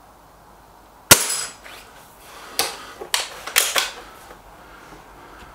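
An SMK XS36-1 underlever spring-piston air rifle fires once about a second in: a single sharp crack with a brief metallic ring. About a second and a half later come several smaller mechanical clicks and clacks as the rifle is handled.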